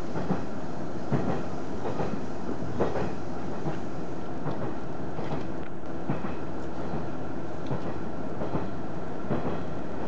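KiHa 110-series diesel railcar running at speed, heard from inside the carriage: a steady rumble of engine and wheels, with short irregular clicks and knocks from the wheels on the track.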